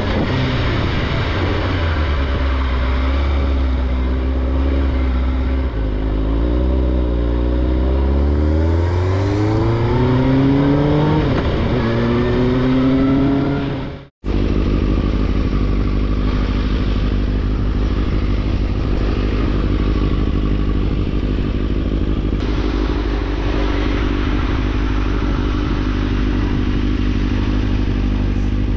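2005 Suzuki GSX-R600's inline-four engine, its revs swinging up and down and climbing near the middle. After a sudden break it runs at a steady pitch.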